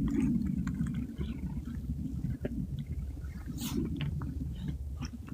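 Footsteps crunching in snow, a run of small irregular crunches over a steady low rumble on the phone's microphone.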